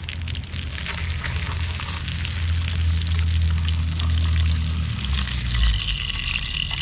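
Trout fillet sizzling and crackling in hot oil in a frying pan, with a spatula and fork scraping under it as it is lifted to be flipped. A steady low rumble runs underneath.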